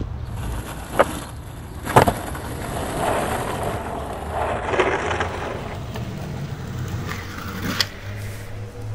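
Skateboard on pavement: two sharp clacks about a second apart, then the wheels rolling over rough asphalt, with another sharp click near the end.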